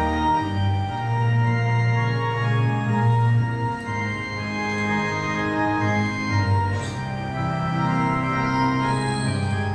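Organ music: slow, held chords over a sustained bass line.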